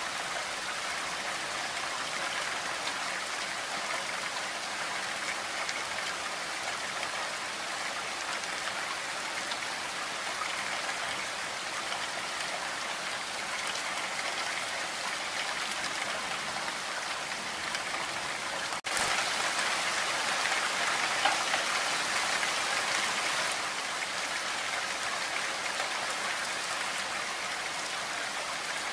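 Heavy rain falling in a steady, dense hiss. It suddenly gets louder about two-thirds of the way through, then drops back a few seconds later.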